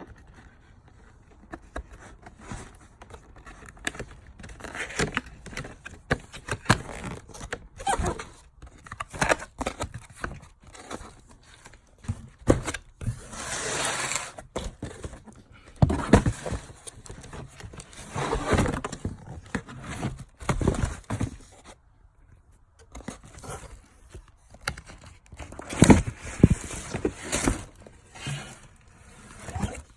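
A sneaker box and its paper packing being handled: paper crinkling and tearing, cardboard scraping, and irregular light knocks.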